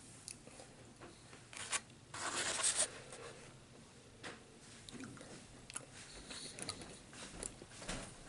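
Handling food and utensils while eating: a short scraping rustle about two seconds in, with a few light clicks and taps around it.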